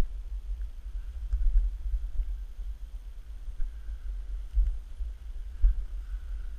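Low, uneven rumbling buffeting on the camera's microphone, typical of wind, with a few louder thumps as the camera moves.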